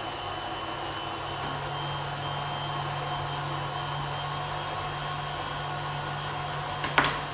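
Electric stand mixer's motor running steadily with a food-mincer attachment fitted, a low even hum. A single sharp click near the end.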